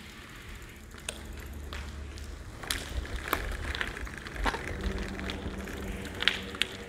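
Footsteps on a debris-strewn concrete path, with irregular short crunches and clicks over a low rumble.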